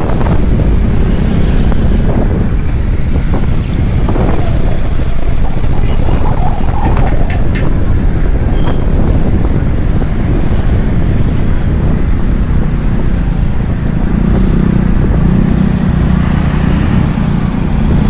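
Kawasaki Ninja 650's parallel-twin engine running under way in traffic, heavily overlaid by a steady loud rush of wind on the microphone.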